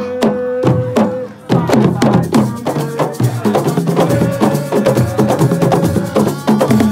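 Drum ensemble playing a fast, dense rhythm of sharp strokes, with a long held tone sounding over it. The playing drops out briefly about a second and a half in, then comes back busier.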